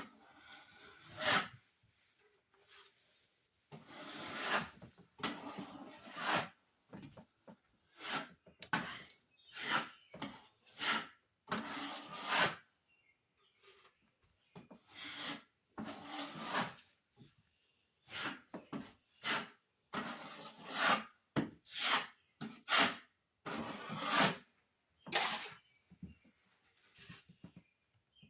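A hand tool scraping against a surface in short, irregular strokes, about one a second, with a few brief pauses.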